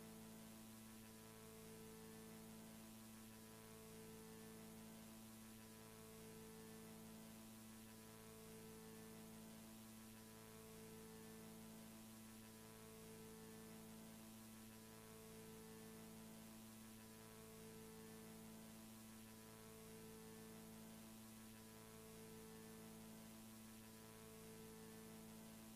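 Near silence: a faint steady electrical hum, with a low tone in it that pulses on and off about every two seconds.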